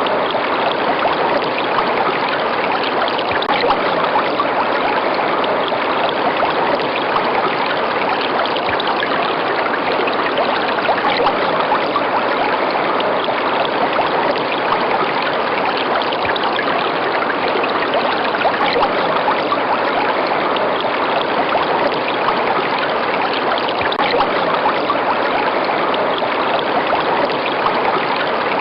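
River water running, a steady, unbroken rush with fine trickling detail.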